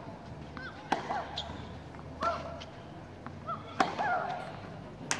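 Tennis rally on a clay court: a ball struck by rackets four times, about a second and a half apart. Each sharp hit comes with a short grunt from the player.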